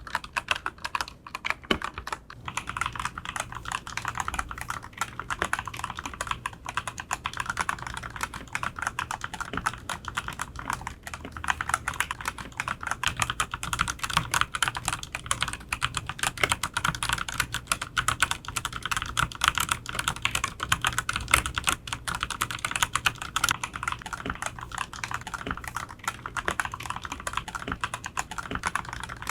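Continuous fast typing on an ABKO K417 tenkeyless mechanical keyboard: a dense, unbroken run of key clacks, many strokes a second.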